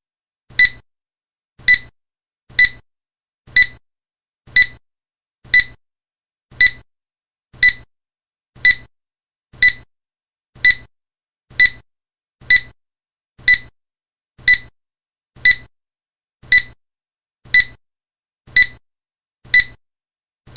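Countdown timer sound effect: a short, high beep once a second, each dying away quickly, about twenty in all.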